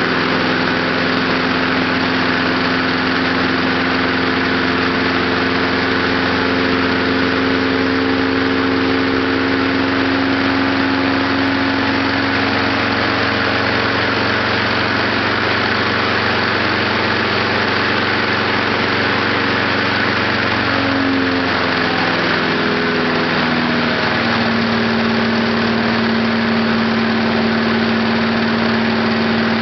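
Small lawn mower engine running steadily on heated gasoline vapor. Its speed wavers about two thirds of the way through, then settles slightly lower.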